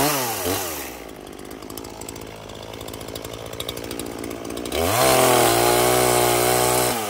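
Gas chainsaw coming down from a rev to idle, idling for about four seconds, then revving up about five seconds in and cutting into a cedar trunk under load to start a felling notch, dropping back toward idle at the end.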